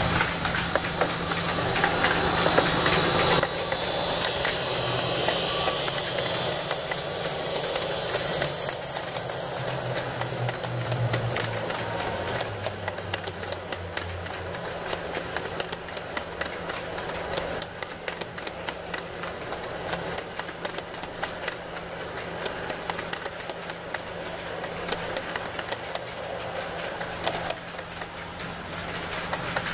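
N-gauge model train running on sectional track, hauling KATO 14-series 700 'Super Express Rainbow' cars: a steady whir from the motor with a rapid patter of wheel clicks over the rail joints. Louder through the first ten seconds or so, then quieter with the clicking carrying on.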